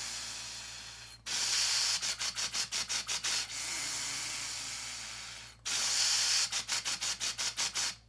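Breath passing through a Breath Builder's straw in two cycles: a long steady inhale, then tongued exhales chopped into quick even pulses, about four or five a second, as a clarinet articulation pattern is practised on air alone.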